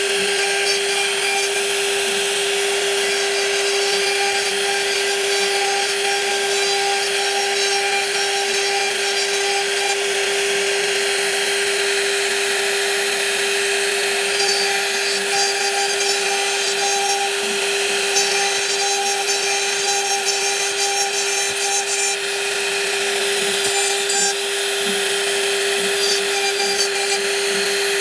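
Power woodworking machine cutting wood: a steady, unchanging machine whine under a constant rasping cutting noise.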